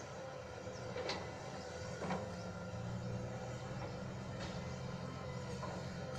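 Diesel engine of heavy earthmoving machinery running steadily, with three sharp metallic knocks from the machine working.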